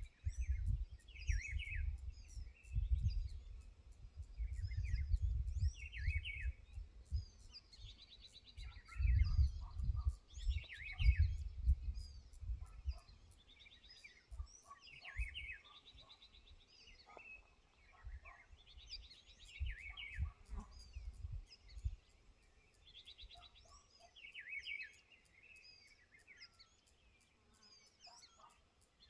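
Several wild birds chirping and trilling in a mixed chorus, with gusts of wind buffeting the microphone through the first two-thirds and dying down near the end.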